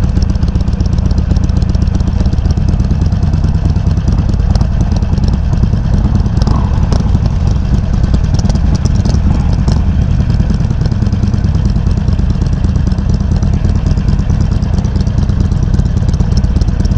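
Harley-Davidson Sportster 883's air-cooled V-twin running steadily at low revs through Customer slip-on mufflers with the baffle set low, a deep, loud exhaust note. A few faint clicks come around the middle.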